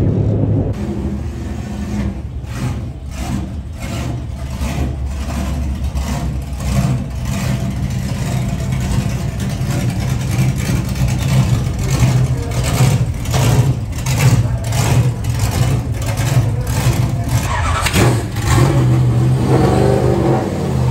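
Race car engines running and revving at a speedway, with a steady drone that changes pitch several times. Many short, sharp cracks sound over it, and an engine revs up near the end.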